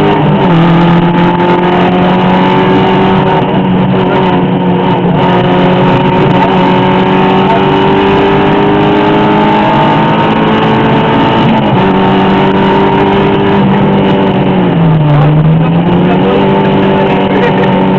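Rally car engine running hard at sustained high revs, with brief dips in pitch as the driver lifts or shifts; the deepest dip comes about three-quarters of the way through.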